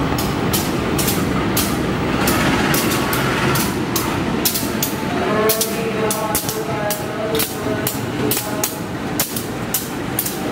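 KAI CC203 diesel-electric locomotive passing close by, its engine running under a steady rumble with many sharp uneven clicks of wheels over rail joints and points. A voice, likely a station announcement, comes in about five seconds in.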